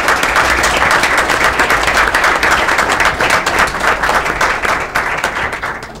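Audience applauding: many hands clapping densely, thinning out near the end.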